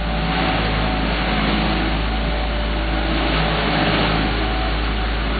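Heavy asphalt paving equipment running, a steady engine drone with a dense mechanical noise over it.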